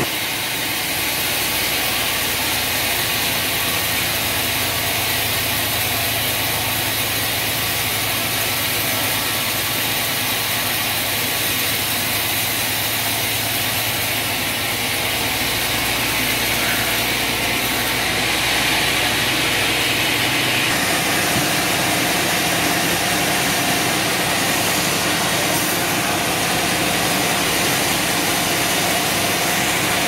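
Large log band saw at a sawmill running steadily: a low motor hum under a steady high hiss. The tone shifts slightly about two-thirds of the way through.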